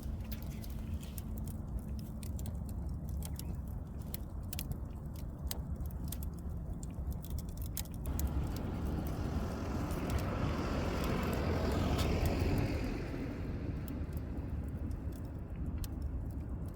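A vehicle passing by, its noise swelling from about eight seconds in and fading again a few seconds later, over a steady low rumble. Sharp clicks and small crackles in the first half.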